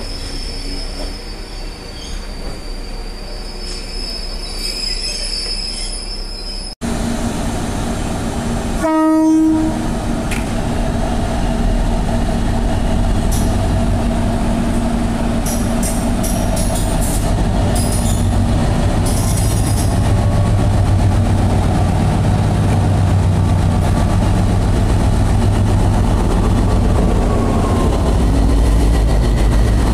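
A train moving out of the platform, then one short horn blast about 9 s in from an approaching DB Cargo Class 60 diesel locomotive. The Class 60's Mirrlees eight-cylinder diesel then runs with a low rumble that grows steadily louder as it draws a charter train slowly alongside, with brief flange squeals from the wheels.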